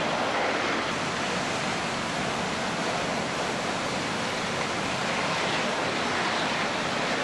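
Steady, even rushing noise with no distinct crackles, knocks or tones, cutting off abruptly at the end.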